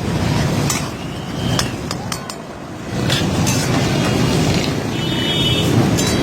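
Metal spatula clinking and scraping against a karahi in a series of short sharp strikes, over a steady background of road traffic.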